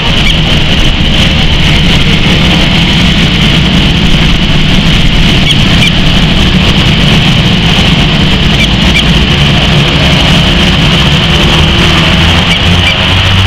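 Beechcraft King Air 350's twin Pratt & Whitney PT6A turboprops running at low power as the aircraft taxis on the runway: a loud, steady propeller drone with a high turbine whine.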